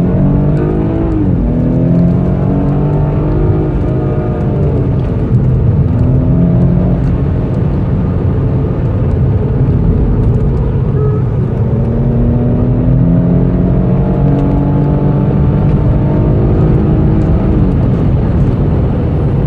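Car engine heard from inside the cabin, accelerating hard on a track lap: its pitch climbs slowly over several seconds at a time and drops sharply about a second in and again near the end, over steady road and wind noise.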